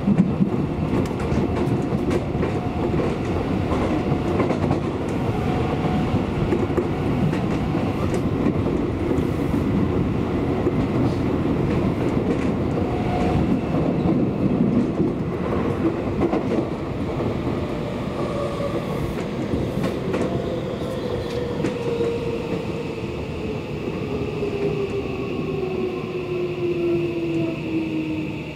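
Seibu Railway electric commuter train running, a steady rumble of wheels on rail with scattered clicks. From about twenty seconds in, a motor whine sinks steadily in pitch as the train slows.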